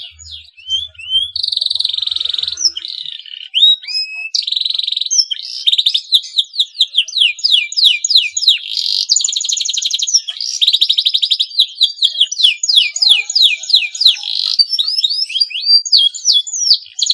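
Male domestic canary in breeding condition singing: a near-continuous song of fast rolling trills made of rapid repeated sweeping notes, broken by a few short held whistles.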